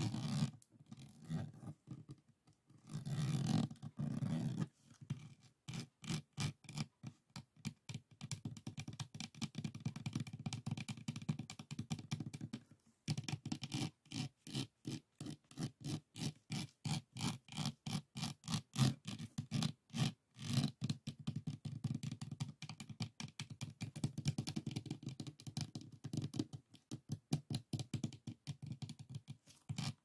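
Fingers scratching and tapping quickly over the bumpy resin drills of a finished diamond painting: a dense run of short, scratchy strokes, several a second, with a brief pause about halfway through.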